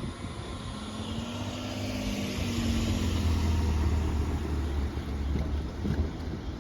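Diesel limited express train Hamakaze running past, a low engine drone and rumble that swells about halfway through and then eases off.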